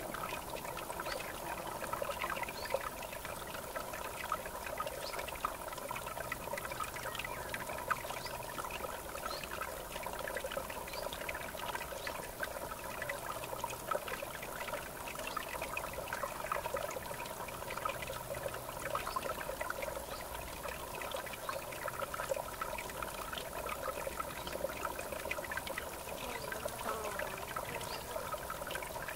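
River water trickling and babbling steadily, with many small splashes and drips.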